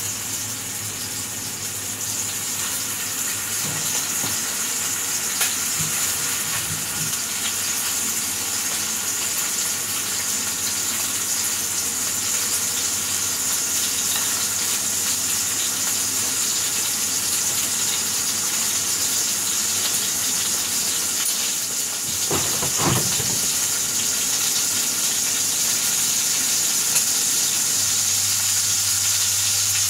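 Burger patties sizzling in a hot frying pan: a steady frying hiss that slowly grows louder.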